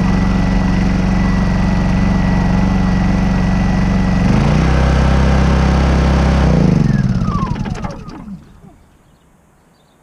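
Honda EU2200i inverter generator's single-cylinder engine idling steadily in eco mode with no load, not yet fully warm, its stock NGK spark plug gapped to 0.024 in: a smooth idle with no missing or coughing. About four seconds in the note drops lower and gets a little louder, and around seven seconds the engine is shut off and winds down to a stop with a falling pitch.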